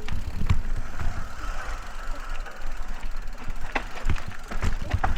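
Calibre Line T2 mountain bike riding a dirt trail: a steady rumble of tyres and wind, with frequent knocks and rattles as it runs over bumps.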